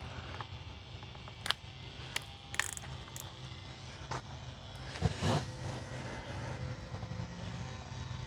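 Light clicks and clinks of small hard parts being handled and set down on a workbench, a handful spaced through the first four seconds and a louder clatter about five seconds in, over a steady low hum.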